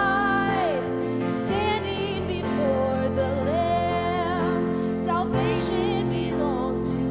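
Slow Christian worship music: a wavering melody line holds long notes over sustained chords. The chords change about a second and a half in and again past the five-second mark.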